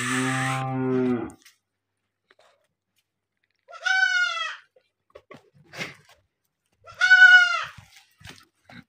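Goats bleating: one deep, low-pitched call lasting over a second at the start, then two shorter, higher-pitched bleats about three seconds apart.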